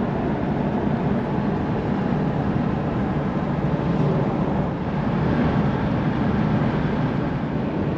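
Steady road, wind and engine noise inside the cab of a Toyota LandCruiser 79 Series cruising at highway speed.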